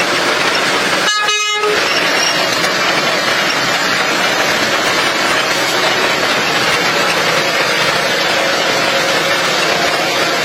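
Steady, loud vehicle running noise with a short horn toot about a second in.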